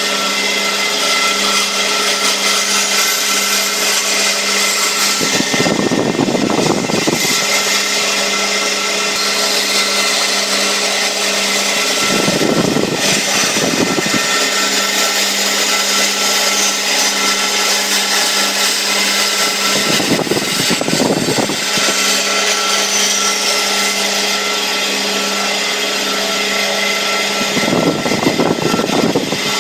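Band saw running steadily with a fixed hum, its blade cutting a curve through a wooden board. A deeper, louder noise swells four times for a second or two each.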